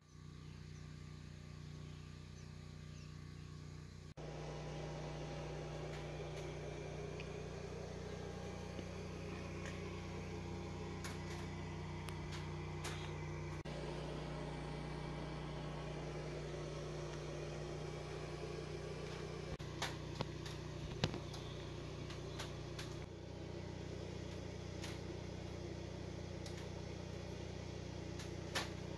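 Steady low hum with a few faint, short clicks scattered through it.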